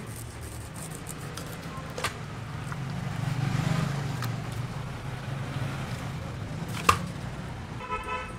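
Low engine rumble of a passing vehicle that swells around the middle and then eases off. Two sharp knocks come from knife work on the sunfish, the second one loud. A short car horn toot sounds near the end.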